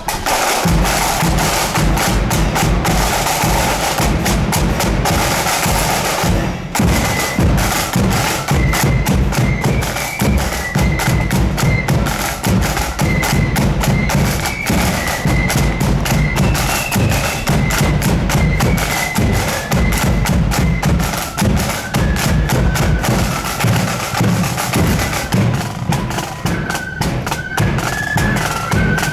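A marching flute band playing: snare and bass drums beat alone for the first six seconds or so, then the flutes come in with a high melody over the drums.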